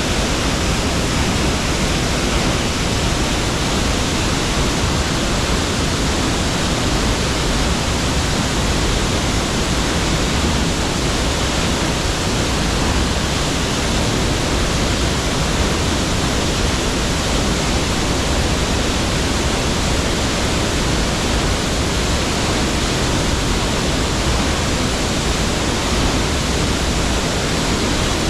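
Cascading waterfall: a steady, loud rush of falling water.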